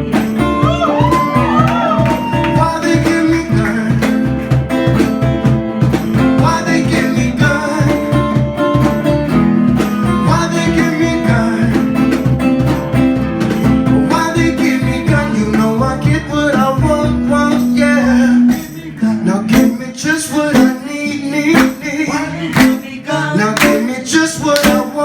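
Live band music: guitar over a steady, pulsing bass beat. About eighteen seconds in the bass drops out, leaving sparser, sharper percussive hits.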